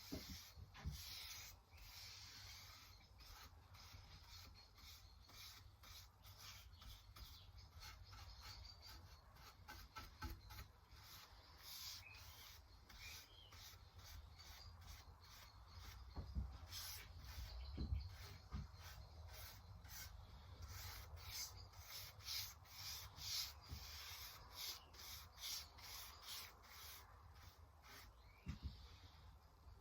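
Cloth rubbing teak oil into sanded kauri wood, a long run of faint repeated wiping strokes that come thicker in the second half.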